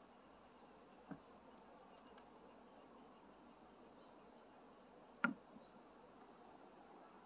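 Near-quiet outdoor background with faint, high chirps repeating throughout. A small knock about a second in and a sharper, louder knock about five seconds in.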